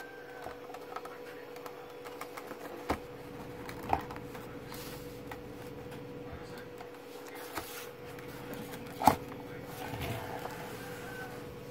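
Plastic back cover of an LCD monitor being pried open and handled, with a few sharp clicks, the loudest about nine seconds in, over a faint steady hum.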